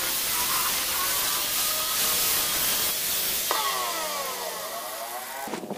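Corded electric hand planer shaving a wooden board with a loud hiss, then switched off about three and a half seconds in, its motor whine falling as the blades spin down. A few sharp knocks follow near the end.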